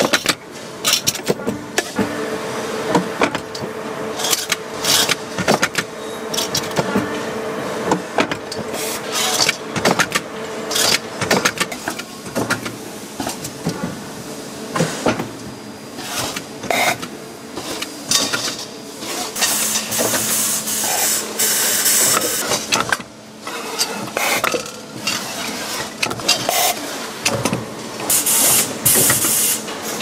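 Automated metal-forming machinery making car air-conditioning condenser parts: presses and strip-feed rollers running with a rapid, irregular series of clicks and knocks. A steady hum sounds through roughly the first third, and bursts of air hiss come about twenty seconds in and again near the end.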